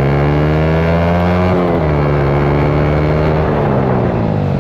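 Yamaha MT-15 motorcycle engine, fitted with an aftermarket exhaust, pulling under acceleration. Its pitch climbs steadily and drops suddenly twice, about one and a half and three and a half seconds in, as it shifts up through the gears.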